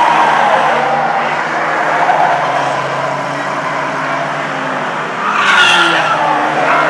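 Several saloon stock cars racing on an oval, their engines running hard at once, rising and falling in pitch. About five seconds in, a short tyre squeal stands out as a car slides through the bend.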